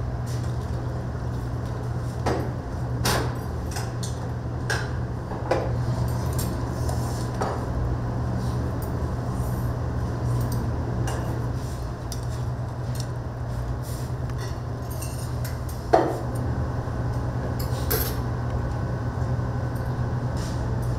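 Dishes and metal utensils clinking and knocking now and then over a steady low hum, with one sharper clink about three-quarters of the way through.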